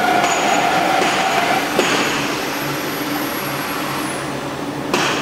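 Roll forming machine running: a steady mechanical drone from its motor and chain-driven roller stations, with a steady whine that fades about two seconds in. A sharp click comes near the end.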